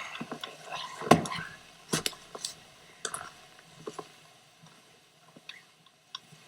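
A tool knocking and scraping against ice and frozen muck inside a frozen septic tank, in a few separate sharp knocks with wet scraping between them. The loudest knock is about a second in, and the knocks thin out over the second half.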